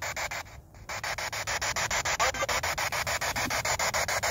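P-SB7 spirit box sweeping through FM radio stations: rapid, evenly chopped static that cuts out briefly under a second in.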